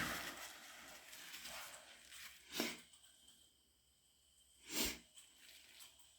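The fading end of a stifled wet sneeze at the very start, then two short, sharp sniffs through a runny nose about two and a half and five seconds in.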